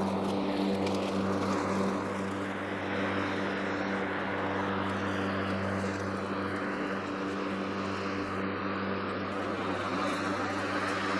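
Stiga Expert Twinclip 950 SQ AE battery lawnmower cutting grass with its side-discharge deflector fitted. The electric motor and twin-layer blade give a steady hum over an even rush of grass being cut and blown out the side.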